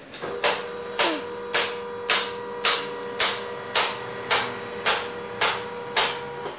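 Two-post car lift raising a car: the motor runs with a steady hum while the safety latches clack evenly, about twice a second. The motor stops abruptly near the end.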